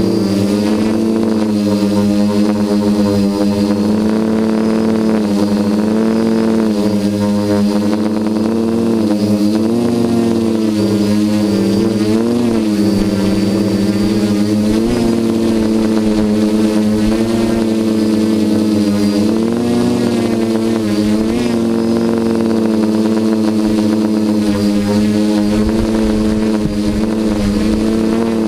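Quadcopter's four electric motors and propellers buzzing in flight, the pitch wavering up and down as the throttle changes.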